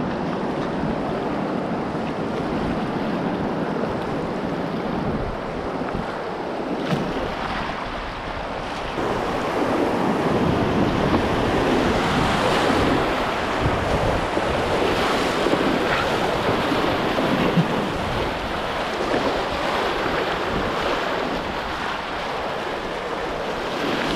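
Whitewater rapids rushing and splashing around an open canoe as it paddles through them. The rush grows louder for several seconds in the middle as the canoe runs through big standing waves.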